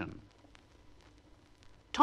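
A man's narrating voice trails off, then near silence with only faint recording hiss until the voice starts again at the very end.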